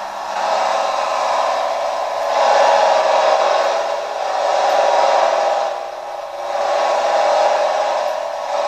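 Modified pulling tractor's engine running at full throttle through a row of open exhaust stacks, a continuous harsh noise that swells, dips about six seconds in, and swells again. It sounds thin, with no low end.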